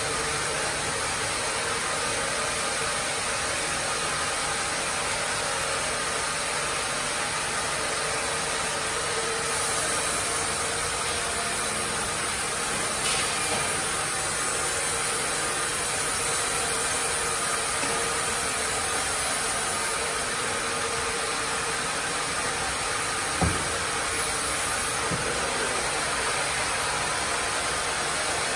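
Log-carriage sawmill running continuously: a steady whir of saw blades and drive motors as a log is fed through the saws, with a couple of short knocks about three-quarters of the way in.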